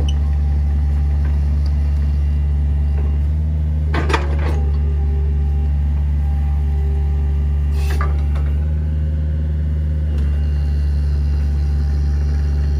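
Mini excavator's diesel engine running steadily under hydraulic load as it lifts and swings its pile-driving attachment, with two sharp clanks about four and eight seconds in.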